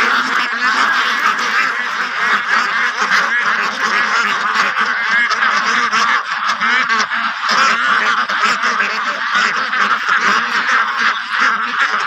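A large flock of white Pekin ducks quacking all together in a dense, continuous din of overlapping calls.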